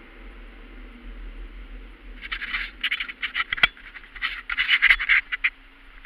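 Dashcam recording inside a moving car: steady road and cabin noise, then from about two seconds in a dense run of loud, irregular crackles and scrapes with a few sharp clicks.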